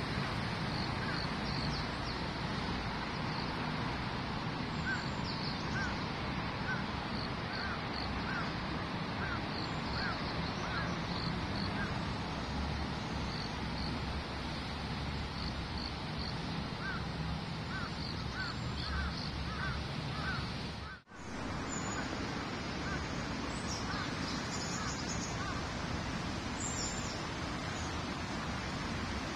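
Wild bird calling outdoors: runs of short, repeated chirps, about two a second, several notes per run, over a steady background hiss of ambient noise.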